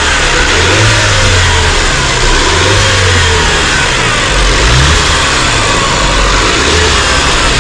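Range Rover Evoque engine revved several times with the bonnet open, its note swelling and dropping back, with a hiss over it. The engine misses under revs, which the mechanic puts down to an air leak he traces to the PCV valve on the valve cover.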